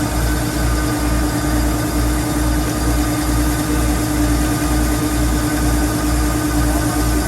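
Rice combine harvester running steadily: an engine and machinery hum with a regular low throb about twice a second.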